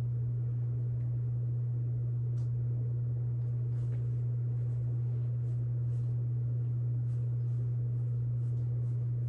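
A steady low hum, unchanging throughout, with a few faint light taps scattered through it.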